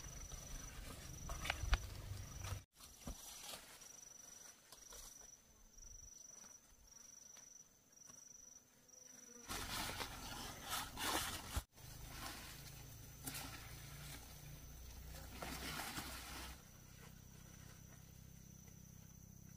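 An insect trills high and thin, pulsing in the first half and then holding steady. Squash and corn leaves rustle in short bursts near the start, about ten seconds in and again about sixteen seconds in, as someone pushes through the plants.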